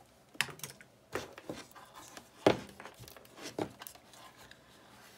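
Handling noise from a large RC car electronic speed controller being picked up and turned over on a table: scattered knocks of its metal case and rustling of its thick power wires, with one sharp knock, the loudest, about two and a half seconds in.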